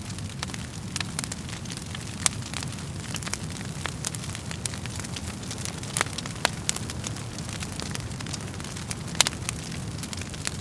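Wood fire crackling in a fireplace: a steady low rumble of flames with irregular sharp pops and snaps from the burning wood, a few louder pops about two, six and nine seconds in.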